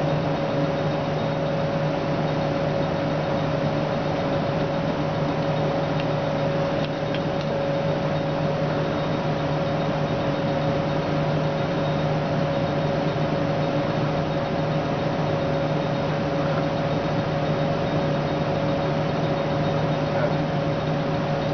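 Steady mechanical hum with a constant low drone and a higher steady tone above it, unchanging throughout.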